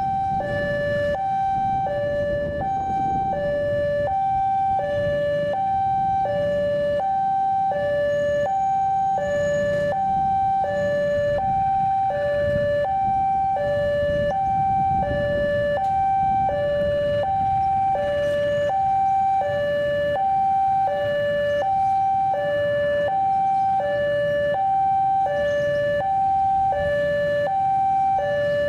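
Electronic railway warning alarm sounding a steady two-tone high-low pattern, about one high-low pair a second, over the low rumble of a diesel locomotive drawing in.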